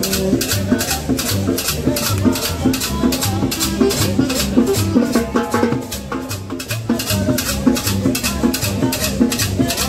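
Live street band playing dance music: a metal scraper keeps an even rasping beat about four strokes a second over drums and a pulsing bass line.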